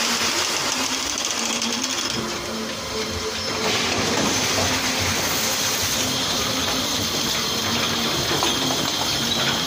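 Milking machine running: a steady mechanical hum and hiss from the parlour's vacuum system, dipping slightly in level about two to three seconds in.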